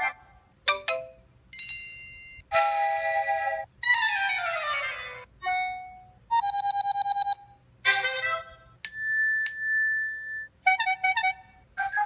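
iPhone ringtones and alert tones played one after another: about ten short melodic tones, each different and about a second long, with brief gaps between them. One of them is a falling sweep about four seconds in.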